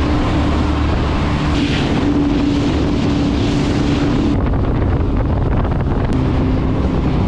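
Jet boat running at cruising speed: a steady engine drone under the rush of water and wind buffeting the microphone. The high hiss drops away a little over four seconds in.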